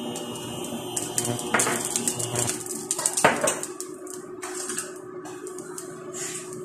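Kitchen items clinking and knocking, most likely the glass spice jars being set down beside a stainless steel pot: a run of clatters in the first half, the loudest a little past three seconds in, then quieter. A steady low hum runs underneath.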